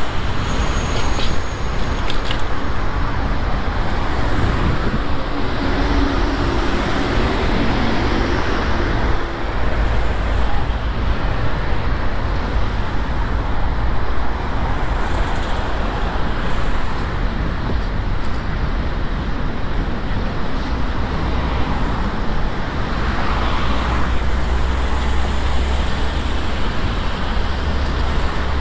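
Road traffic heard from a bicycle on a city street: cars passing close by, over a steady low rumble. A vehicle engine hums for a few seconds about five to nine seconds in.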